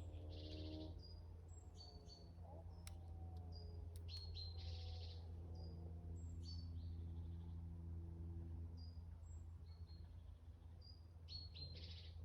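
Small birds chirping with short, high, repeated calls and a few brief buzzy trills. A faint, steady low hum runs beneath them.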